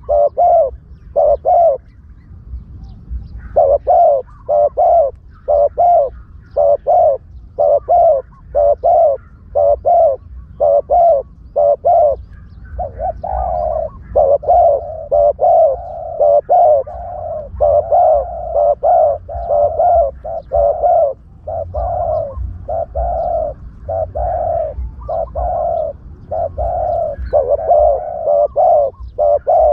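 Spotted doves cooing over and over in quick runs of short notes, with hardly a pause: a decoy call for luring spotted doves.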